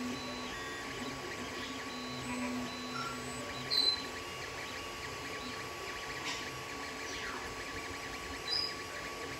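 Creality Ender 3 3D printer running a print: a steady whir of its cooling fans, with the motors sounding short, changing tones as the print head moves. There are a few brief high chirps, the loudest about four seconds in.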